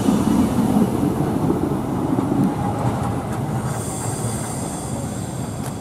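Retram, Fukui Railway's former Stuttgart GT4 articulated tram, pulling away: wheels rumbling on the street rails and traction motors running, fading as it moves off. A high thin squeal comes in about four seconds in.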